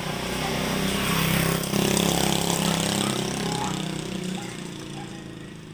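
A motor vehicle's engine passing close by in the street, growing louder over the first couple of seconds and then fading away.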